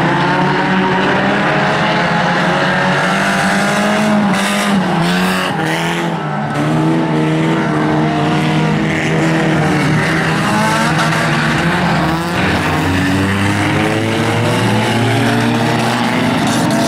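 Several banger-racing stock cars lapping a dirt oval, their engines overlapping and rising and falling in pitch as they rev through the bends. There is a brief rush of harsher noise about four to six seconds in.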